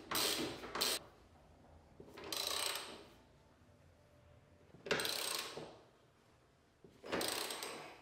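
Ratchet wrench with a 10mm socket clicking as it tightens the washing machine motor unit's mounting bolts, in four short bursts of ratcheting about two and a half seconds apart.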